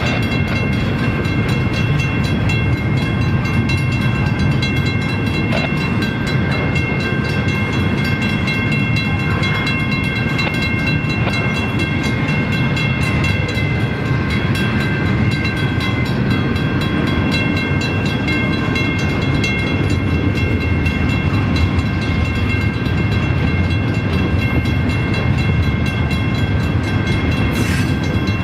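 Double-stack intermodal freight train rolling past at a grade crossing: a steady heavy rumble and rattle of wheels and container cars, with steady high-pitched ringing tones over it.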